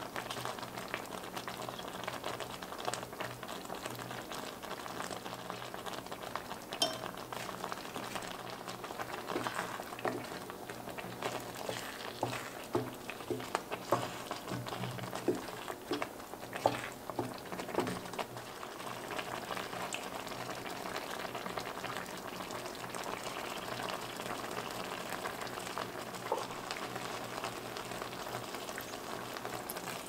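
Spaghetti simmering in a creamy liquid in an enamelled pot, bubbling steadily. Partway through, a wooden spatula stirs the pasta and gives a run of short scrapes and knocks against the pot.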